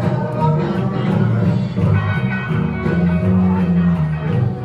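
Upbeat music with a steady beat and a strong bass line.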